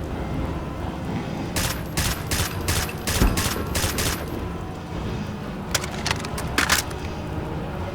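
Gunfire: a quick run of about seven shots, then a few more scattered shots a second or two later, over a steady low rumble.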